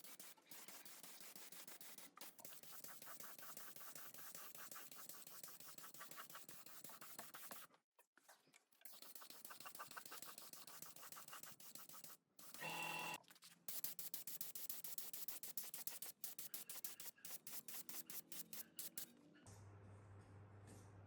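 Rapid, repeated scratching and scraping strokes of a hand tool working a surface, broken by a couple of short pauses, with a brief pitched sound about halfway. A steady low hum comes in near the end.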